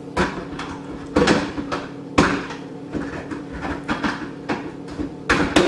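Knocks and clatter of kitchen things being handled and set down on a counter, several sharp knocks about a second apart with a quick cluster near the end, over a faint steady hum.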